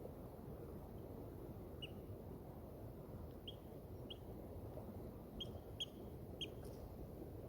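A small bird calling in short, high chirps, about six of them spread over several seconds, with a steady low rumble of outdoor background noise beneath.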